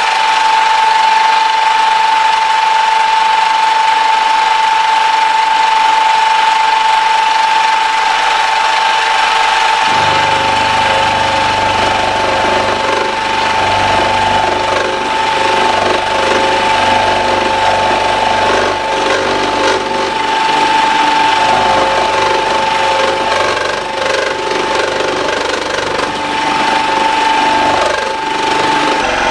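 Milling machine running, with a steady spindle whine, as the end mill cuts metal and the table is fed by hand. About ten seconds in, a deeper rumble joins and the cutting noise turns rougher.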